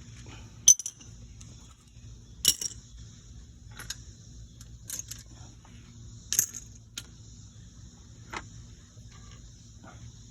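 Sharp metallic clinks of hand tools, five or six scattered over several seconds with the loudest about a second in, over a steady low hum.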